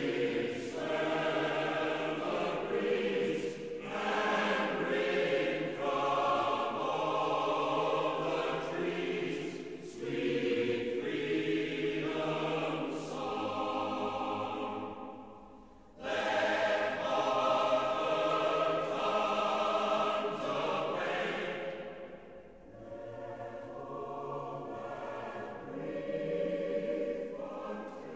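Choral music: voices singing long held chords in phrases. It fades about halfway through, then comes back in suddenly, and it is softer near the end.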